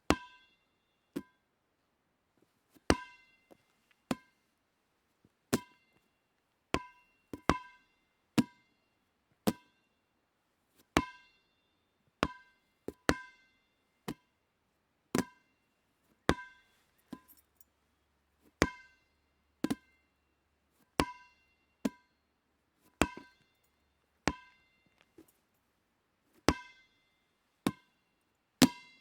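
Dodgeball bouncing: about two dozen single sharp smacks at uneven intervals of roughly one to two seconds, each with a brief ringing ping.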